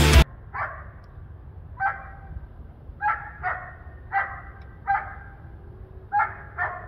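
A dog barking: eight short barks, singly and in pairs, about a second apart.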